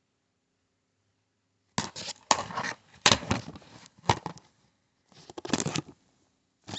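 Shark puppet's cloth rustling and bumping against the phone's microphone in irregular bursts, starting about two seconds in after near silence.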